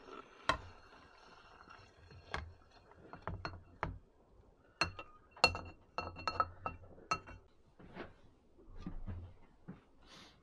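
A saucepan being scraped and knocked with a utensil as food is served out of it onto a plate: a run of irregular clinks and knocks, several a second at the busiest, some with a short metallic ring.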